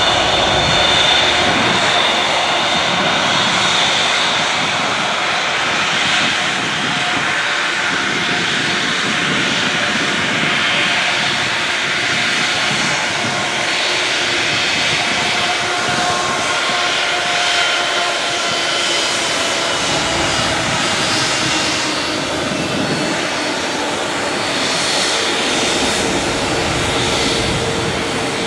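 Airbus A380's four Engine Alliance GP7200 turbofans running at low taxi power as the airliner rolls slowly by: a steady jet rush with high whining tones that drift slightly in pitch.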